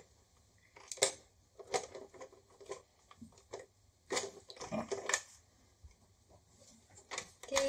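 Plastic parts of the Run Yourself Ragged skill toy clicking and rattling as it is played by hand: irregular sharp clicks and short scraping knocks, roughly one every half second to a second, with brief quiet gaps between.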